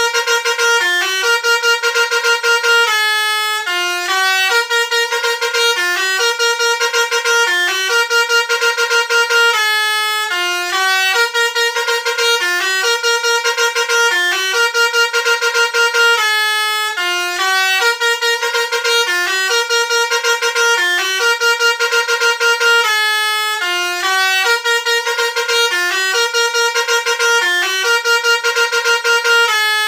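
Telolet basuri multi-tone bus horn playing a tune of short stepping notes, the same melodic phrase coming round about every six and a half seconds.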